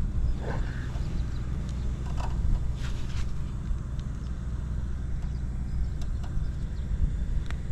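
Buell XB12SS Lightning's 1203 cc air-cooled V-twin idling steadily, with a few faint light ticks over it. The engine is in good running order with no abnormal noises, as the seller describes it.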